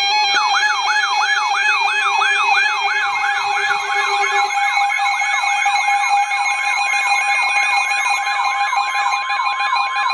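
Weather radio alert alarms sounding ahead of a National Weather Service warning broadcast: a rapid, siren-like falling whoop repeats about three times a second over steady alarm tones.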